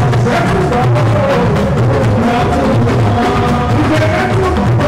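Live band music: a drum kit and electric guitar playing a steady groove, with a man singing into a microphone.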